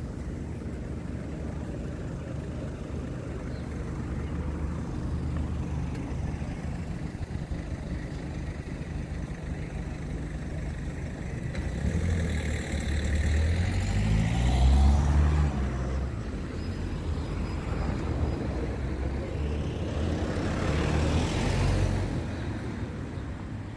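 Street traffic: two vehicles drive past over a steady low street rumble, the first and loudest about halfway through, its engine pitch sliding as it passes, and a second, weaker one near the end.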